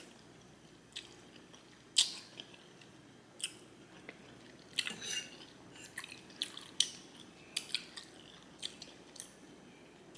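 Close-up chewing of a mouthful of spaghetti in meat sauce: soft, irregular wet smacks and clicks of the lips and mouth.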